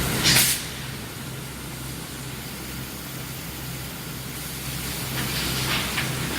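Induction hardening line for steel sucker rods running: a steady low electrical hum under a constant hiss. A short, loud hiss comes just after the start, and a weaker one about five seconds in.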